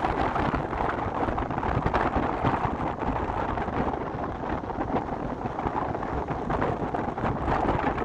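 Beach ambience: surf and wind, with wind buffeting the microphone in a steady low rumble.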